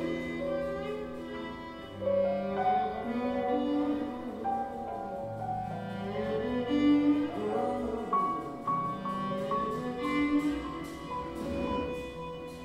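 Improvised live instrumental music: long held notes with some sliding pitches, and a short run of repeated higher notes about two-thirds of the way through.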